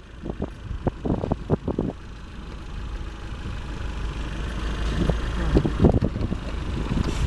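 A vehicle engine idling with a steady low rumble, with irregular gusts of wind buffeting the microphone, strongest in the first two seconds and again about five seconds in.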